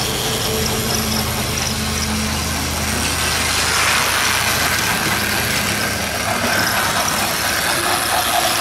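Battery-powered Plarail toy train running on plastic track: a steady motor whir with the wheels rattling, getting brighter and denser from about three seconds in as the engine passes close.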